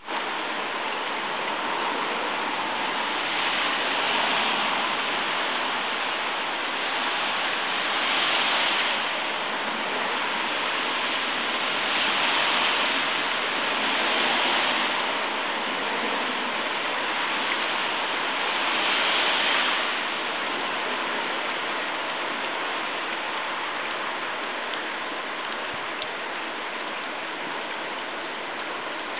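Falling water in a steady hiss, swelling and easing several times in the first twenty seconds, then steadier and a little softer.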